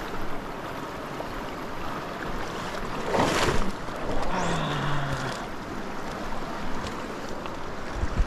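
The South Platte River rushing steadily in Cheesman Canyon, running slightly high. About three seconds in there is a brief louder whoosh, and soon after a short low hum.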